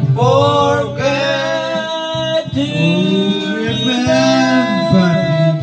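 Music playing: a song with a singing voice holding long notes over instrumental backing.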